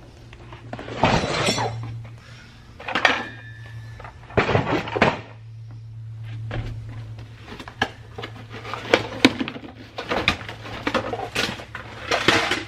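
Metal kitchen utensils and kitchenware clattering and clinking as a box of them is rummaged through, in several bursts of sharp knocks and clinks that grow busier near the end, over a steady low hum.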